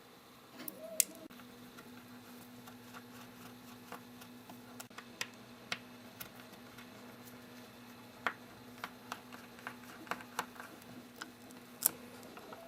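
Faint, scattered clicks and ticks of small tools against tiny screws and the metal case while screws are removed from inside an iPod Touch 5th generation. There is a sharper click about a second in and a few more later on.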